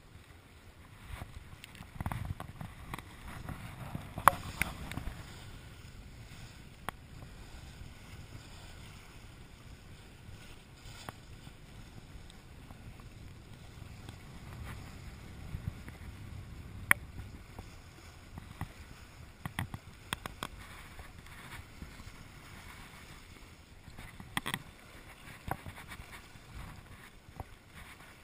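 Water rushing and splashing past a sailboat's hull under way, with a low wind rumble and a few sharp knocks, the loudest about four seconds in.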